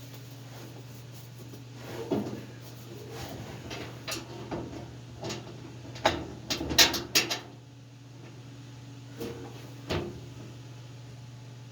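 Scattered knocks and clunks of boat seats and their mounting hardware being handled and test-fitted in a truck cab, with a quick cluster of sharp knocks about six to seven seconds in. A steady low hum runs underneath.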